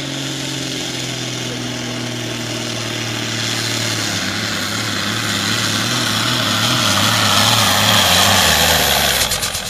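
Diesel engine of a hot farm class pulling tractor running at full throttle under the load of a weight-transfer sled, its note wavering and sagging lower as it lugs down. It grows louder as the tractor comes close, then drops off abruptly with a few clicks near the end.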